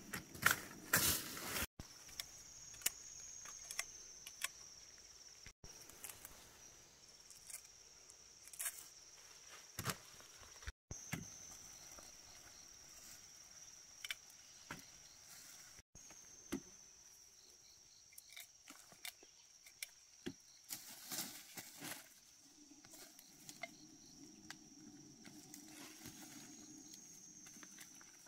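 Insects singing in a steady high-pitched drone that swells a little every several seconds, under scattered light knocks, taps and rustles.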